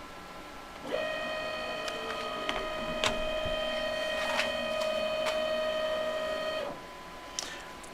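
X-axis stepper motor of a DM45 mill CNC conversion driving the table along its ball screw back to X0: a steady whine that starts about a second in and stops sharply about six seconds later, with a few faint ticks.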